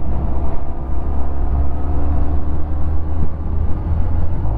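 Honda Hornet motorcycle engine running steadily while riding at low speed, over a constant low rumble.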